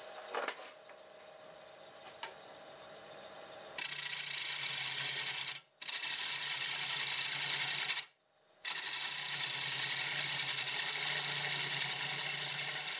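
Half-inch bowl gouge cutting the outside of a spinning wooden bowl blank on a lathe at about 800 RPM: a steady scraping hiss of steel on wood that starts about four seconds in and breaks off twice briefly.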